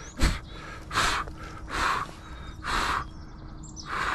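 A person's heavy breathing close to the microphone, a breath about once a second, after a knock just after the start. Small birds chirp faintly near the end.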